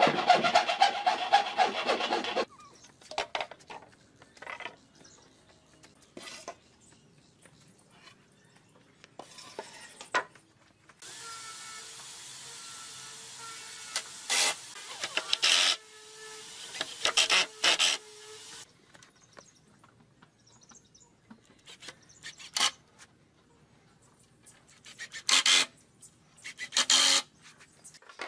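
Woodworking on pine with hand and power tools. A burst of rasping on wood opens it, followed by scattered knocks and taps. In the middle a steady machine hiss runs for about seven seconds with loud clicks over it.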